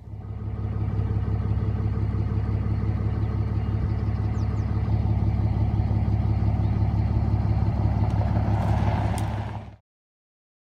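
A vehicle engine idling steadily, a low hum that cuts off suddenly near the end.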